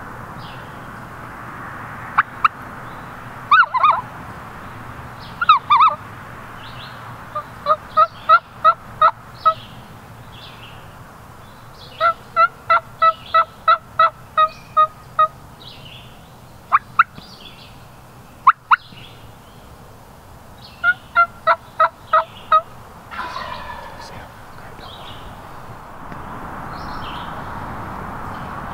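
Eastern wild turkey yelps: several runs of evenly spaced yelps, about three a second, with sharp single clucks between them. A short gobble comes about two-thirds of the way through.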